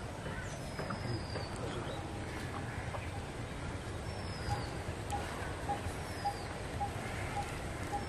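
Birds calling over steady outdoor background noise: short high falling whistles every couple of seconds, and from about halfway a bird repeating a single short note about twice a second.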